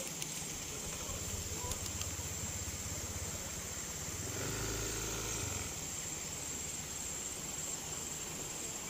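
A vehicle engine running at a distance over a quiet outdoor background. Its low hum grows louder about halfway through and then fades, with a steady thin high-pitched whine throughout.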